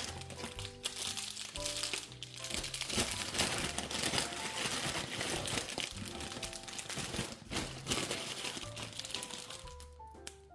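Plastic crinkling and rustling as wrapped candy is handled and packed into a bag, with background music playing throughout. The crinkling dies away near the end.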